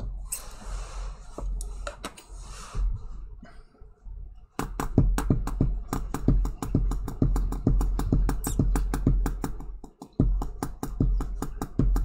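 Cardboard boxes slid and rustled on a tabletop for the first few seconds, then a long run of rapid, irregular light clicks, several a second, from hands fiddling with a small object. The clicks pause briefly about ten seconds in. A steady low hum lies under it all.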